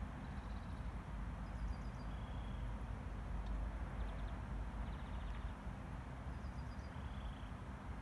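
A small songbird sings a short, high phrase three times, about every four to five seconds, over a steady low rumble.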